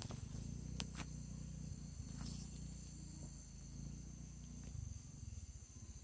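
Chorus of night-singing insects: several steady, high-pitched trills at different pitches, one of them pulsing evenly, over a low rumble and a couple of faint clicks.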